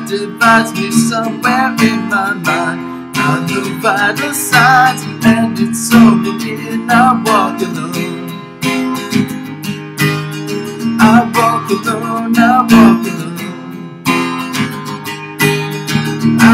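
Acoustic guitar strummed in steady chords, with a man's voice singing along over it.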